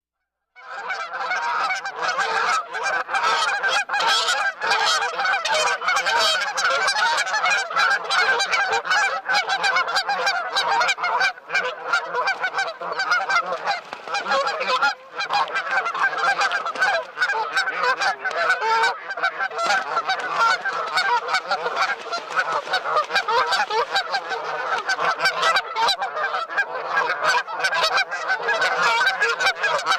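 A flock of birds calling all at once, many short calls overlapping in a dense, unbroken chorus that starts about half a second in.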